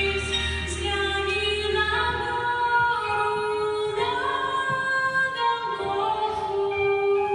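Female voices singing in harmony, holding long notes that step up and down in pitch together.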